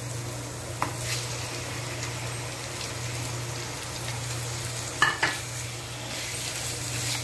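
Oil sizzling in a non-stick frying pan as chopped raw chicken is tipped in among softened onions and stirred with a silicone spatula, over a steady low hum. A sharp knock sounds about five seconds in.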